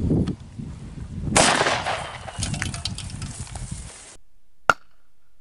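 A single loud gunshot about one and a half seconds in, with a rushing tail after it, as a spray paint can is hit. The sound then cuts off, and one sharp crack comes near the end.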